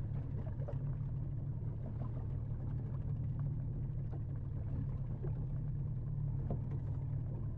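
Outboard motor of a small dinghy running steadily under way, a continuous low drone.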